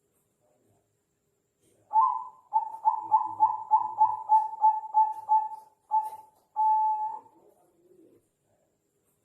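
Zebra dove (Bangkok-bred perkutut) singing one song phrase starting about two seconds in: a fast run of short coos, about three a second, ending in a longer held coo.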